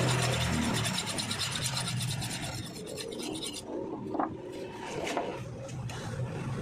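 A file rasping across the metal edge of a grass cutter blade in quick, even strokes, stopping about three and a half seconds in.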